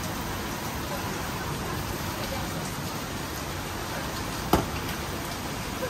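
Split lobster halves sizzling on a hot grill, a steady hiss, with one sharp click a little past halfway.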